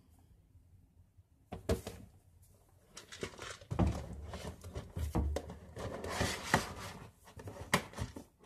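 Handling noises from a small plastic pill container and medicine boxes: sharp clicks and knocks with rustling, starting about one and a half seconds in and busiest in the middle.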